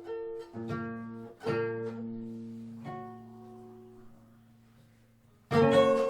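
Peruvian harp being plucked. A few single notes ring out over a held bass note and slowly die away almost to nothing, then loud, dense playing starts abruptly near the end.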